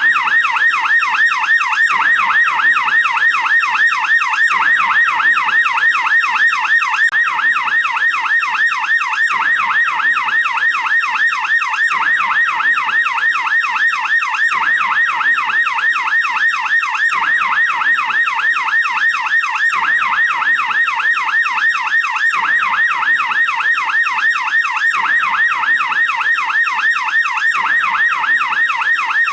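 American police car siren on its yelp setting: a loud, fast up-and-down wail repeating steadily without a break.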